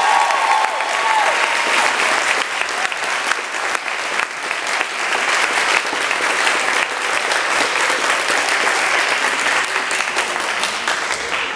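Audience applauding, a dense, steady clatter of many hands clapping, with one voice cheering briefly at the start; the clapping dies down near the end.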